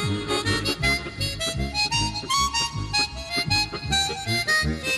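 Background music with a steady beat and a reedy, harmonica-like lead.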